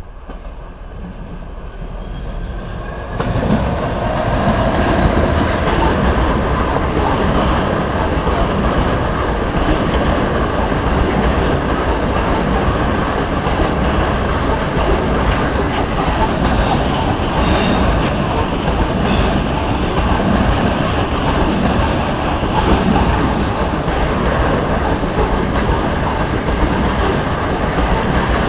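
Class 66 diesel-hauled freight train of hopper wagons passing close by, the wheels running over the rails with a steady rolling rumble. The sound builds as the train approaches, then jumps louder about three seconds in and holds as the wagons roll past.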